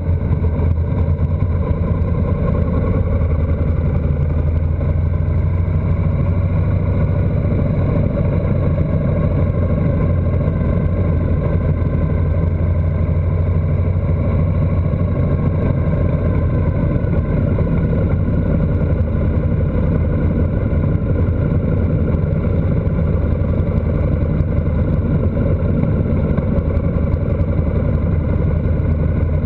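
Motorcycle engine running steadily at cruising speed, with wind and road noise. Its pitch rises and falls a little as the throttle changes.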